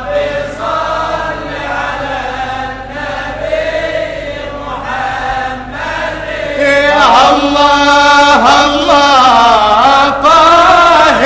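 Chanted Arabic devotional singing, a nasheed in praise of the Prophet. Voices hold long, winding melismatic notes and grow louder about six and a half seconds in.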